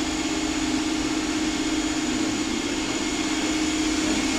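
A steady, unchanging engine-like hum with a constant hiss.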